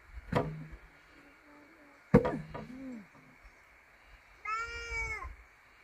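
Two sharp wooden knocks, the louder about two seconds in, as a bamboo post is stood upright in its hole. Near the end, a single high-pitched, drawn-out vocal call lasting under a second.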